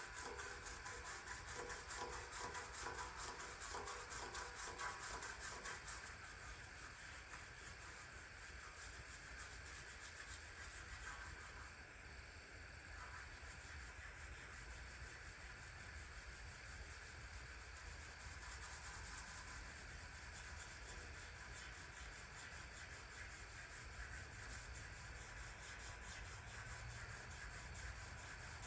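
Rapid, steady rubbing strokes on a surface, as in hand sanding or scrubbing during cleaning, over a low hum; the rubbing gets a little quieter about six seconds in.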